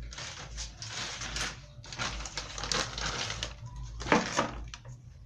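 Insulating tape being pulled off its roll in several rasping stretches as it is wrapped on, with a few sharp clicks about four seconds in.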